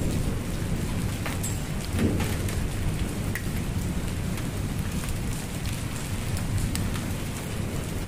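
Hail and rain falling steadily on wet concrete, with many sharp clicks of single hailstones striking, over a steady low rumble.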